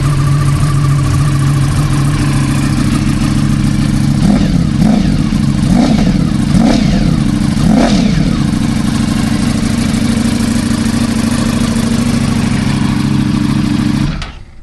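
Ducati V4 superbike engine with an Akrapovič exhaust idling, then blipped about five times in quick succession from about four to eight seconds in, settling back to idle before stopping abruptly near the end.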